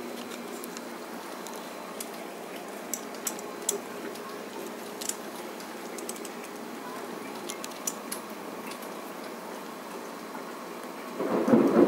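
Steady downpour of rain with scattered sharp ticks. Near the end a loud rumble of thunder breaks in.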